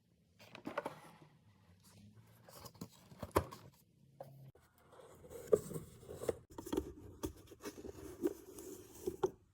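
Handling noises from a Miele Complete C3 vacuum cleaner during a dust bag change: sharp plastic clicks and knocks scattered throughout, over rustling and scraping of the bag and its housing.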